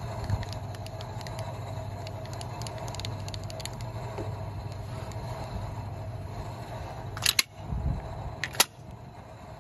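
Cincinnati Milacron PFT24 milling machine humming steadily, with light metallic ticks while the table handwheel is turned. Two sharp clicks come near the end, and the hum drops after the second.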